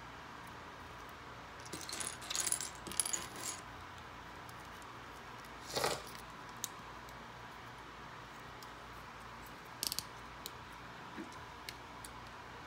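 Loose plastic Lego pieces clattering on a wooden tabletop as a hand sifts through them: a burst of rattling about two seconds in, a single louder clack around six seconds, another short clatter near ten seconds, and small scattered ticks in between.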